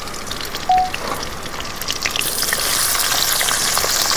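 Hot cooking oil sizzling and spitting in a kadai, growing steadily louder: the oil is hot enough for frying. A brief knock sounds about a second in.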